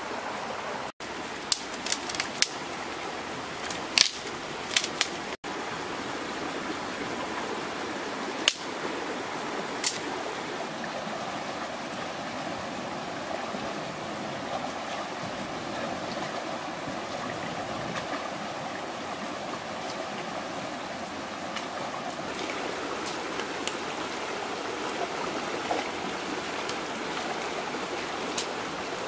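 River water rushing steadily over stones in a shallow rapid. A handful of sharp clicks or knocks come in the first ten seconds.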